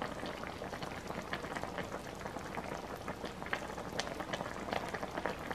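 Kimchi udon stew simmering in a shallow pan, bubbling steadily with many small irregular pops.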